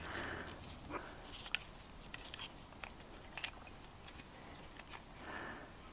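Faint scattered clicks and light taps as the lower pad pin and the brake pads are pulled out of a motorcycle's front brake caliper, with a soft rustle of handling now and then.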